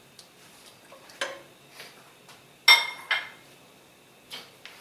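Kitchen clatter at the stove: a few light knocks of a wooden spoon stirring in a stainless steel pot, then a sharp clink with a brief ring nearly three seconds in and a smaller one just after.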